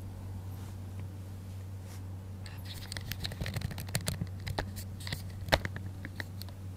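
An irregular flurry of sharp clicks and taps starts about two and a half seconds in and dies away near the end. The loudest knock comes about five and a half seconds in, over a steady low hum.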